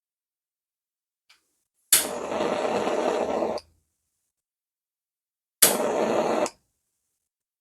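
Jet-flame torch lighter fired twice: each time a sharp ignition click and then a steady hiss of burning gas that cuts off when released, the first lasting nearly two seconds, the second about one.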